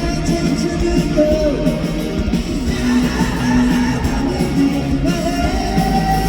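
Live pop-rock band playing a song, with electric guitar, bass, drums and a sung vocal line that holds and slides between notes.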